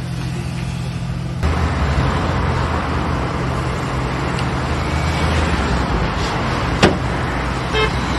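Steady low engine rumble under a broad hiss, typical of road vehicle noise, getting louder about one and a half seconds in, with one sharp knock near seven seconds.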